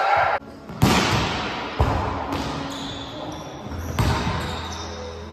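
A ball being struck or bouncing three times, about a second in, near two seconds and at four seconds, each sharp hit ringing on in the echo of a large gymnasium.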